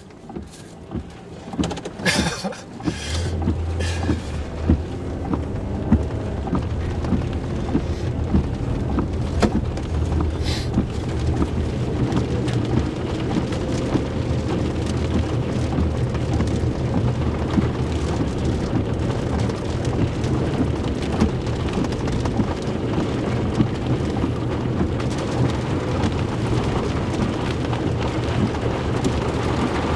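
Heavy thunderstorm rain falling hard, a dense patter of drops hitting a surface, with a steady low rumble underneath. It builds over the first few seconds, then holds steady.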